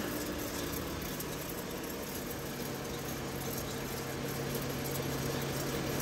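Steady whirring hum of a car's front wheel and tyre spinning freely at about 30 mph on a lift, with the engine and drivetrain running in gear and a low drone holding steady. This is the wheel where vibration in the coil spring points to a worn wheel bearing.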